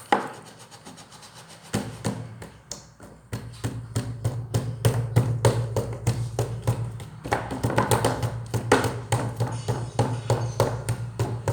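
Slime being squeezed and pressed by hand, giving many short sharp clicks and pops several times a second, over a steady low hum that comes in a little under two seconds in and grows louder.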